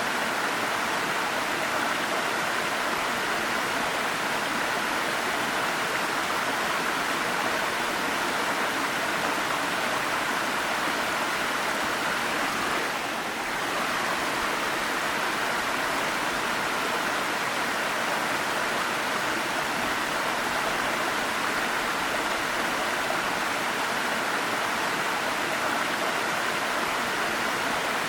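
Waterfall: water pouring and splashing in a steady, even rush, with a momentary dip in level about 13 seconds in.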